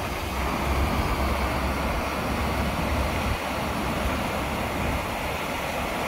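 Steady rush of water from the Ara Waterfall, an artificial cascade, pouring down over rocks. A low rumble underneath fades out about halfway through.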